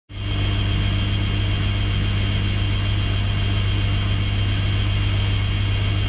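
Toy scale-model Miele washing machine spinning its drum: its small electric motor gives a loud, steady hum.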